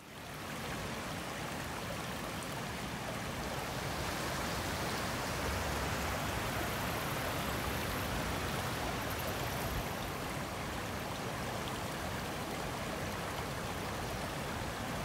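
Creek water flowing, a steady, even rush.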